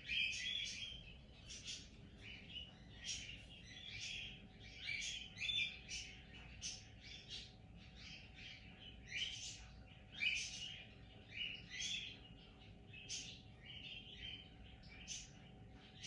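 Cockatiel giving soft, short chirps over and over at an uneven pace, one or two a second.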